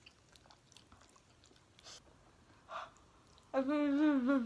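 Faint eating sounds, small clicks of forks in glass noodle bowls, then about three and a half seconds in a woman lets out a long, wavering vocal cry, grimacing at the heat of spicy noodles.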